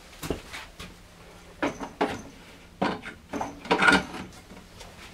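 Handling noise: a series of knocks and clatters of hard objects being moved and set down, loudest in a cluster about four seconds in.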